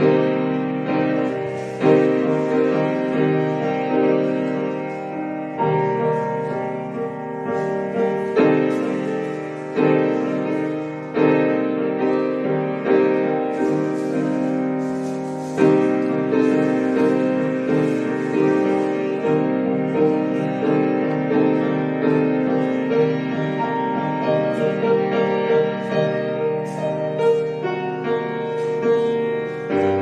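Piano music: chords struck every few seconds and left to ring out.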